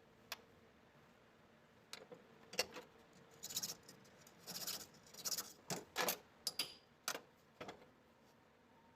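Small metal parts being handled in a workshop: a run of light clinks and short scrapes starting about two seconds in and stopping near the end, one clink ringing briefly.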